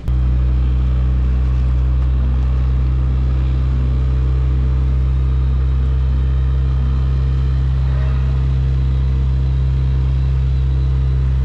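Sailboat's auxiliary motor running at a steady, unchanging speed under way: a loud, even low drone.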